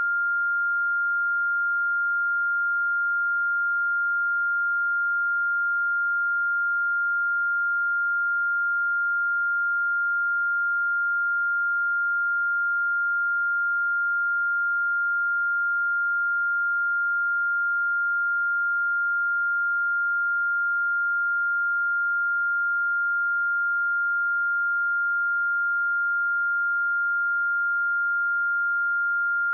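Steady 1401 Hz sine wave test tone, a single pure pitch held at a constant level with no change.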